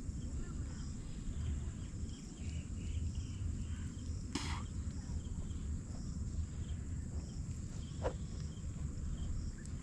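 Outdoor lakeside ambience: insects chirping steadily over a low rumble, with a short burst of noise about four seconds in and a brief falling chirp about eight seconds in.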